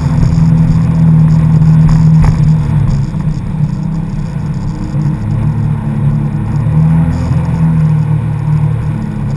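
Jet ski engine running steadily, louder for the first three seconds and then easing off a little.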